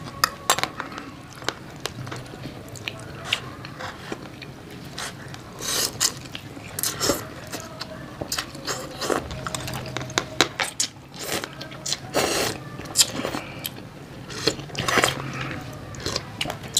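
Close-up eating sounds: crunchy bites into fried chicken and chewing, in many short irregular bursts, with light clinks of a spoon and chopsticks on bowls and plates. A low steady hum runs underneath.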